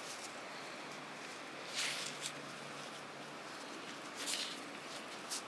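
Gloved hands handling a small soil-caked metal find: a few brief rustles and scrapes over a steady low hiss.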